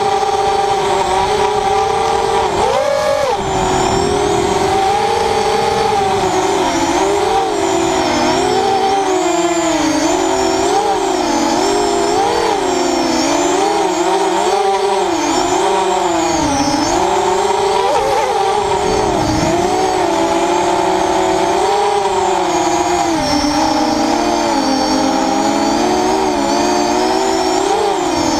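ZMR 250 racing quadcopter's Tiger Motor 2206 2000kv brushless motors and 6x4.5 propellers whining, the pitch rising and falling every second or so as the throttle changes in flight.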